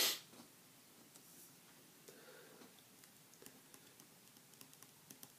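Felt-tip marker writing on paper: faint scratches and small scattered ticks as letters and brackets are drawn. It opens with one short, loud breathy noise.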